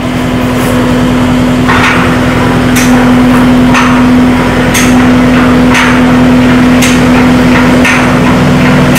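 Skid steer-mounted hydraulic post driver hammering a post, striking about once a second, over the steady running of the skid steer's engine.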